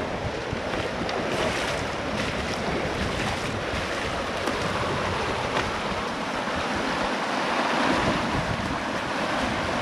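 Muddy water rushing steadily through a freshly blasted breach in a beaver dam as the pond behind it drains, with wind buffeting the microphone.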